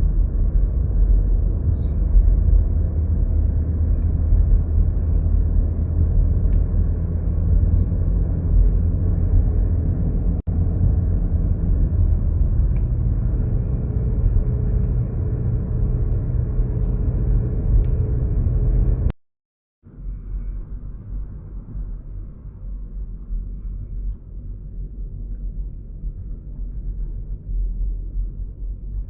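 Mountain river rushing steadily, a deep low rumble of water. About two-thirds of the way through it cuts out for half a second and comes back quieter.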